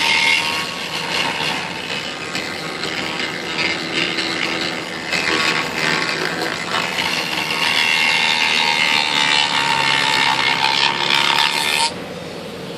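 Handheld rotary tool running and grinding at the edge of a cutout in a wooden tray, cleaning it up. Its motor whine rises and dips with the load, and it stops suddenly about a second before the end.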